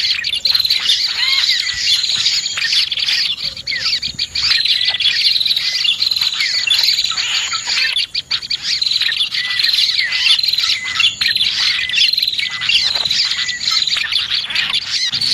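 Bird-lure recording of prinias (prenjak) and other small birds calling: a dense, unbroken chorus of rapid high chirps and trills.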